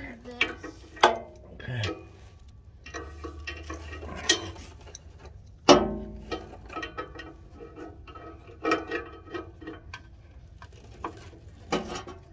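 Adjustable wrench clicking and clinking against metal under a car while it is worked onto an exhaust oxygen sensor, with irregular small taps and scrapes and one sharper knock about six seconds in.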